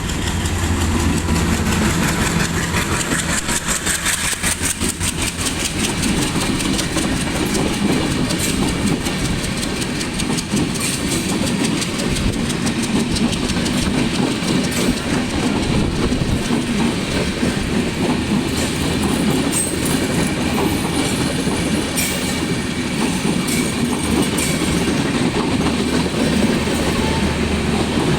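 Broad-gauge diesel locomotive running under power as it hauls a passenger express past, its engine being notched up to accelerate. The wheels clatter rapidly over the rail joints, most densely in the first ten seconds or so.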